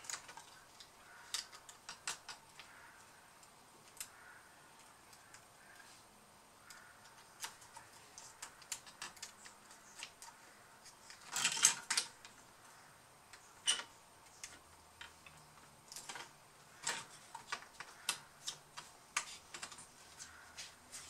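Scattered small plastic clicks and taps from hands handling and seating parts inside an opened laptop, with a louder cluster of clicks a little past the middle.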